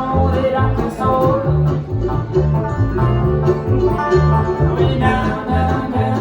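Live bluegrass band playing an instrumental break: rapid plucked banjo and acoustic guitar over a walking bass line.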